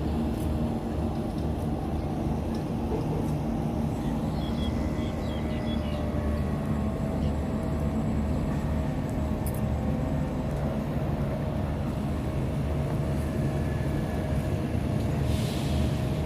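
An engine running steadily: a low, even drone with a constant hum, and a few faint high chirps about four seconds in.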